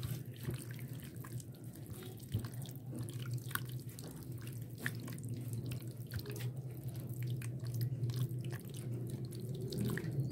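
Hands squishing and kneading raw chicken pieces in a yogurt and spice marinade in a glass bowl: irregular wet squelches and small clicks, over a steady low hum.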